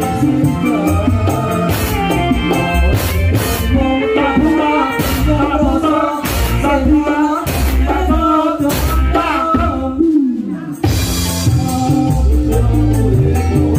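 Live campursari dangdut band playing loudly through a sound system: drum kit with cymbal strikes and hand drums under a bending melodic line, with singing. About ten seconds in the band drops out briefly on a falling slide, then comes back in.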